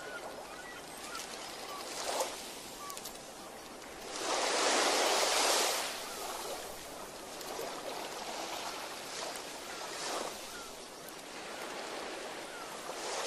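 Water lapping and washing, with a louder surge of wash lasting under two seconds about four seconds in. Faint small chirps sit over it.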